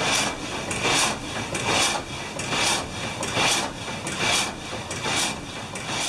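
The 1796 water-powered up-and-down frame saw cutting pine at its lowest speed: a rasping cut on each stroke, a little under one a second, in a steady rhythm.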